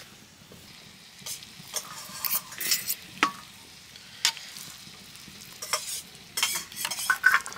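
A utensil stirring and scraping in a pot of noodles: irregular scrapes and knocks, busier near the end.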